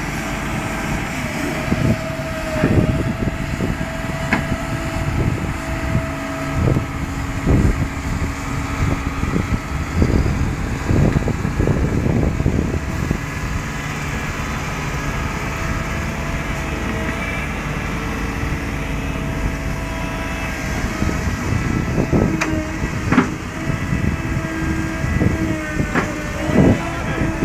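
Diesel engines of a Fendt tractor and a yellow excavator running while they tow a mired box trailer out of mud on a chain, with a steady engine tone and irregular thumps throughout.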